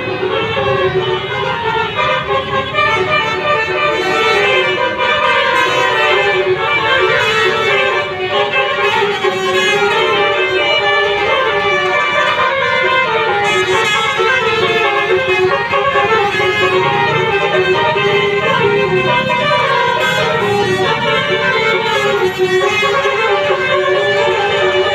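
Telolet bus horn: several horn tones playing a quick, tune-like run of changing notes without a break.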